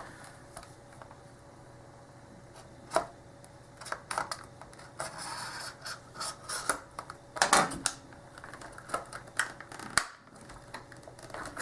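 Hands handling a Schlage padlock and its packaging: scattered light clicks, taps and rubbing or rustling, with sharper knocks about three seconds in and again past the middle.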